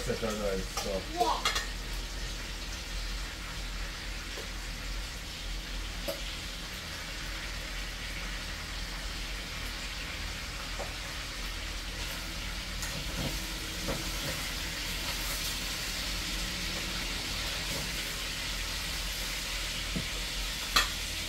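Chicken pieces frying in a hot pan on a gas stove, a steady sizzle as they brown for brown stew chicken, with a few light clicks as they are turned.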